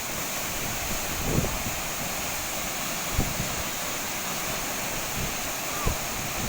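Steady rushing of a high waterfall, with a few short low bumps of wind on the microphone.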